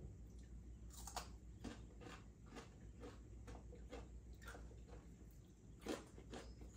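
Faint kitchen food-preparation sounds: light, irregular clicks and taps of food and utensils being handled at a counter, a little louder about a second in and near the end.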